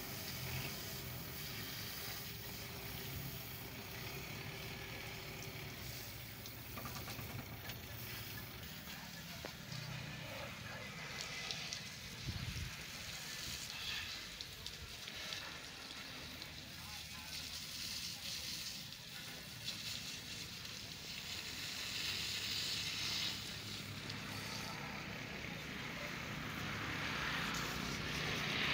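Water spraying from a garden hose onto a motorcycle: a steady hiss and spatter that swells louder several times as the spray is pinched and aimed.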